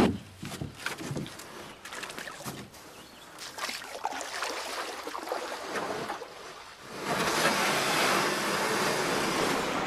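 Rushing noise of water, thin and broken by scattered crackles at first, then a fuller steady rush from about seven seconds in.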